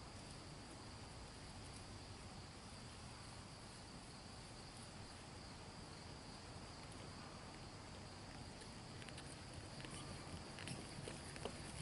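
Steady high-pitched drone of insects in the field and woods. Faint hoofbeats of a horse on grass come in during the last few seconds.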